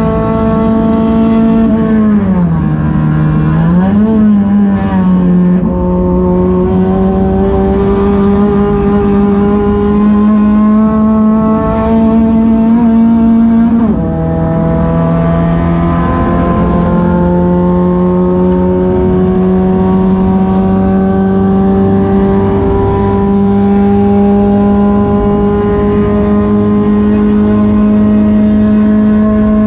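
Touring race car's engine heard from inside the cockpit, running hard at a steady high pitch. Around two seconds in the revs drop and pick back up. The pitch then climbs slowly until a gear change about halfway through makes it fall sharply, and it climbs slowly again after that.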